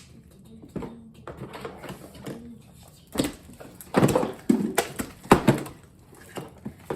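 Irregular clicks and knocks of handling at a table, clustered about three to six seconds in, as children play with slime.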